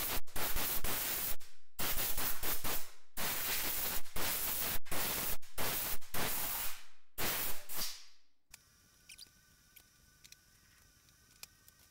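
Compressed air blowing dust out of a mixing console's fader circuit boards: a loud hiss in a run of short and longer bursts that stops about eight seconds in. After that, a few faint clicks over a low hum.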